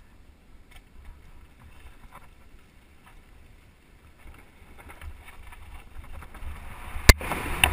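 Mountain bike descending a rough dirt singletrack: steady low rumble of tyres and wind on the microphone, with small rattles. A sharp, loud knock comes about seven seconds in, and a smaller one just after.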